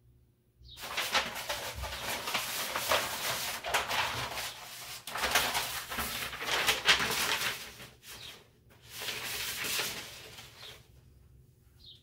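Sheets of butcher paper being handled and crinkled, a long stretch of rustling with brief pauses about five and eight and a half seconds in.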